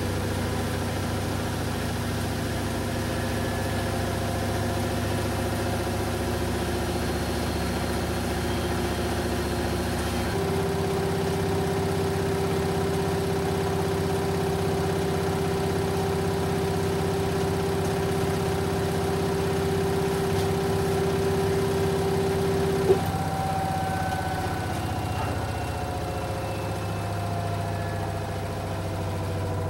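Samsung WD136 front-loading washer-dryer running mid-cycle: a steady machine hum and whine from its direct-drive motor and drum. About ten seconds in a strong steady tone joins, and it cuts off with a sharp click a little past twenty seconds, after which the whine slides slowly downward in pitch.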